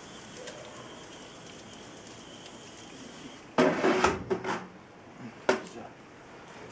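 Metal clattering and knocks at the base of a stainless-steel smoke cabinet, starting about three and a half seconds in, as the hatch over the smouldering sawdust is handled and shut. Two sharp clicks follow.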